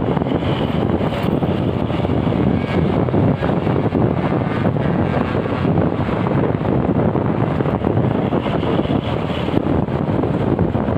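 Steady wind rumble on the microphone, mixed with road and engine noise from a moving vehicle following close behind an intercity bus.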